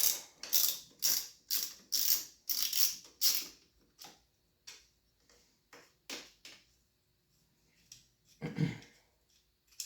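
Socket ratchet clicking back in short strokes about twice a second, then slower and fainter, while loosening tightly torqued top-end nuts on a KTM 125SX two-stroke. One louder, lower sound comes about eight and a half seconds in.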